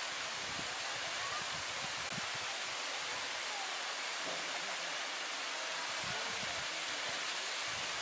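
Steady rushing hiss of water falling down the ravine's cascades.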